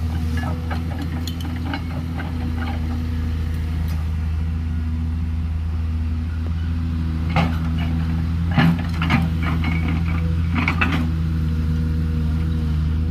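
JCB 210LC crawler excavator's diesel engine running steadily as the machine works, with several sharp clanks and scrapes of the bucket on gravelly rock in the second half.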